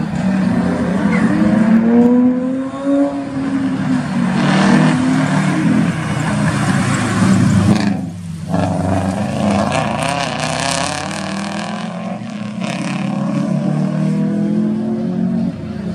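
Subaru Impreza rally car's flat-four engine revving hard through a cone slalom, its pitch repeatedly climbing and dropping as it accelerates and lifts between gates. The sound drops out briefly about eight seconds in.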